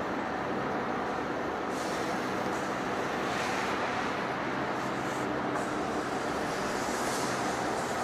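Heavy industrial machinery running steadily, an even mechanical noise with a low hum underneath.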